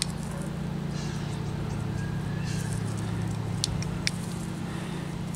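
A few light clicks of the steel pistons and push rods of a Sanden AC compressor tapping against the wobble plate as they are handled and greased, two of them sharp, near the end. Under them runs a steady low hum.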